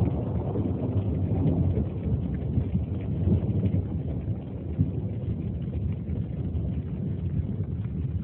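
Thunder rumbling low and long, loudest at the start and slowly easing off.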